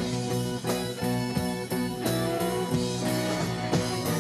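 Rock band playing live, with electric guitar to the fore over keyboards and a steady drum beat.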